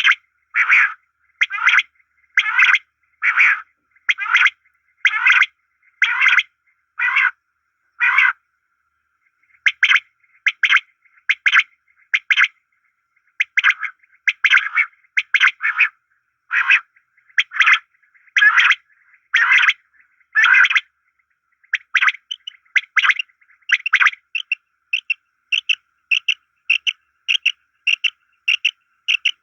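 Common quail calling: short, sharp notes repeated in steady runs of about one to two a second, with a brief pause about eight seconds in. Near the end the calls come faster and tighter.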